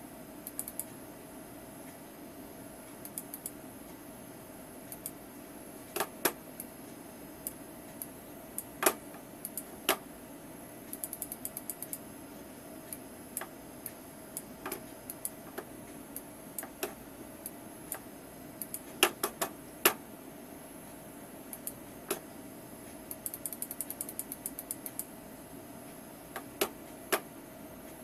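Scattered sharp single clicks and short runs of fast ticking from a computer being operated by hand, over a steady hum.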